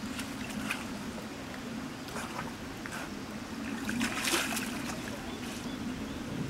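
Brown bear drinking from a stone water trough, lapping and sloshing the water in short irregular splashes, the loudest about four seconds in, over a steady low hum.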